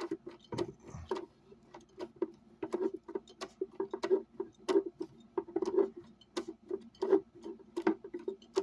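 Screwdriver turning a screw out of a speaker cabinet: irregular sharp clicks and ticks, about two or three a second.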